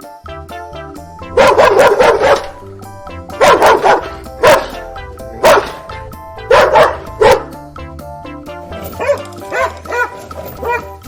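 A dog barking in loud groups of barks over a steady background music track, with quieter barks near the end.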